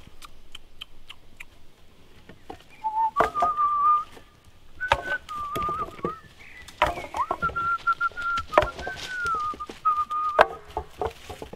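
A person whistling a slow tune in long held notes, between sharp knocks and rustles of sticks being handled.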